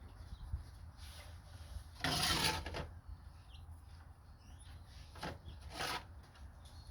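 Hand-tool work on a mower's oil drain plug: a rasping scrape of metal about two seconds in and a shorter one near the end, with a few faint clicks between.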